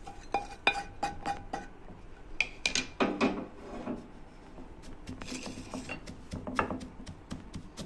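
Whole toasted spices (coriander, fennel, fenugreek and mustard seeds) knocked out of a nonstick frying pan into a wooden mortar, with a few ringing taps at the start, then pounded with a wooden pestle. The pounding is a run of sharp, irregular wooden knocks.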